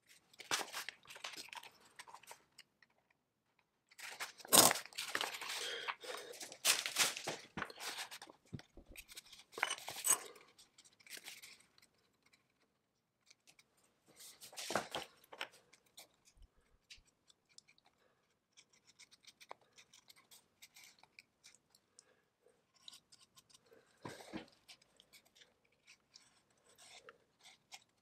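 Irregular bursts of crunching and scraping from hand work on parts, loudest about four to eight seconds in, with quieter gaps between the bursts.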